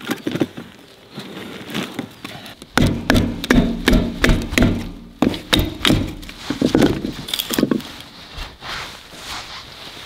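Knocking and clattering of a wood stove's chimney pipe being handled and fitted: a few knocks at first, then a dense run of them from about three seconds in, some with a short ring, easing off near the end.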